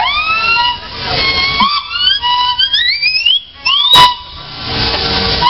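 Steam whistles on a row of traction engines and steam rollers blowing together: several tones of different pitches overlap, many sliding up in pitch as each whistle opens. A sharp click about four seconds in is the loudest moment.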